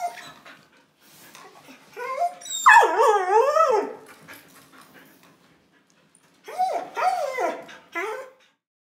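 A dog vocalizing before a walk, with whines that waver up and down in pitch: one long, loud call, then three shorter ones near the end. This kind of vocalizing can be a sign of stress in the dog.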